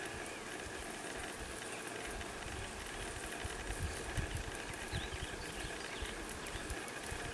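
Honey bees buzzing around an opened hive, a steady drone, with irregular low rumbles underneath.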